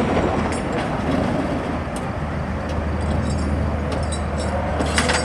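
Demolition derby car engines running steadily, with a few sharp knocks, the loudest near the end.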